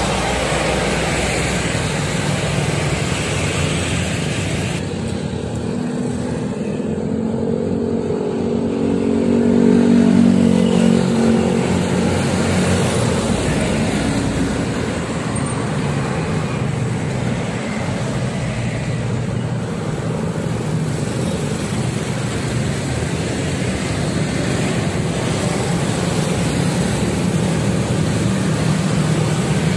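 Road traffic passing close by, mostly motorcycles with some cars and minibuses, engines and tyres going by one after another. One engine grows louder to a peak about ten seconds in and then fades.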